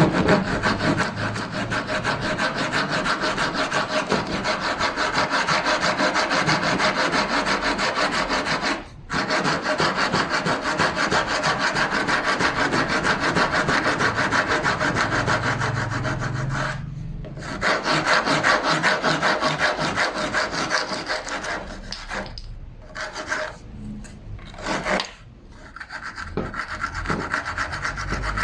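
Hand saw cutting through wood in quick, steady back-and-forth strokes, stopping briefly a few times.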